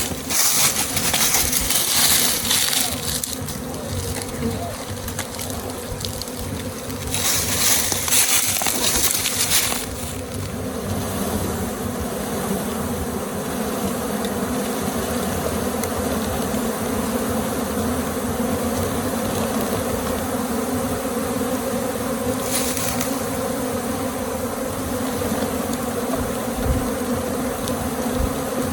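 A honey bee swarm buzzing: a dense, steady hum of many bees. Two spells of high hiss break in during the first ten seconds, and a shorter one about twenty-two seconds in.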